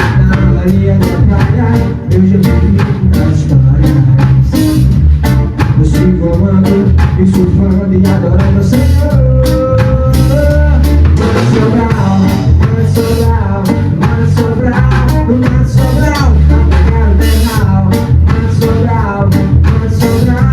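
A band playing a song: drum kit keeping a steady beat over bass and guitar, with shifting melodic lines on top.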